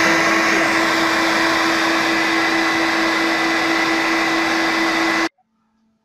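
Vacuum-cleaner turbine of a homemade central vacuum unit running during a suction test: a loud, steady rush of air with a constant whine. It stops abruptly about five seconds in.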